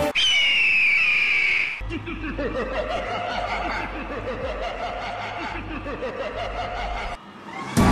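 A demon character's loud villainous laughter, a string of short 'ha-ha' bursts over a low drone, after a high shrill tone in the first two seconds. Band music cuts back in near the end.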